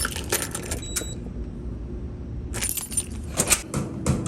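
Metal keys jangling and clinking in hand, with a short high beep about a second in, then a quieter stretch before a busy run of rattling clinks, over a steady low rumble.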